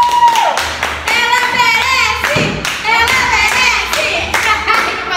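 Several people applauding together with steady hand claps, over music with singing.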